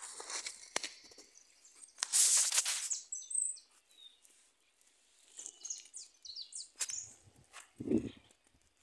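Birds chirping in short, high calls. A loud rustling burst comes about two seconds in, and a low thump near the end.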